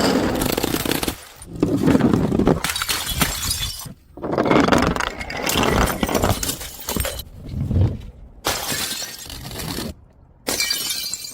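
Glass bottles breaking and shattering, one after another, about eight separate crashes. Several start or stop abruptly, with short silent gaps between them.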